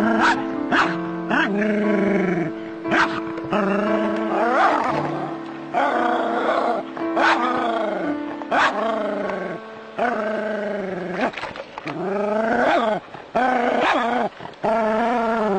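A dog barking and yelping again and again, about once a second, with music underneath.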